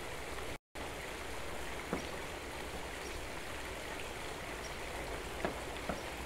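Steady splashing and trickling of a tiered stone fountain's water, with a few light clicks and one brief dropout about half a second in.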